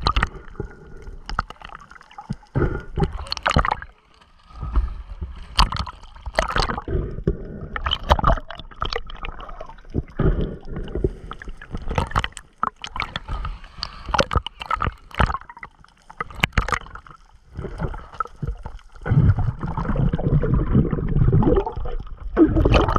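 Water gurgling, sloshing and bubbling around a camera dipping in and out just under the sea surface, with irregular splashes from swimmers. The splashing and bubbling are loudest and most continuous for a few seconds near the end.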